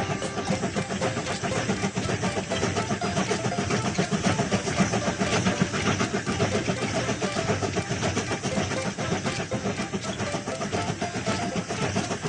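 Cartoon train sound effect of a train running along the track: a steady, rapid rhythmic clatter.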